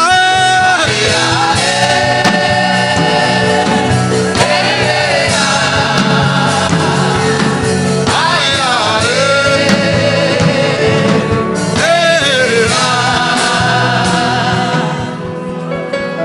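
Gospel worship music: voices singing long, wavering held notes over instrumental backing, fading down near the end.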